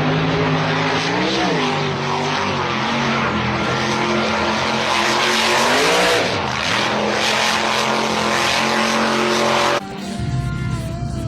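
Off-road truck engine running hard at high revs, with a loud rushing noise over it. The engine note swings up and back down twice, and the sound cuts off abruptly near the end.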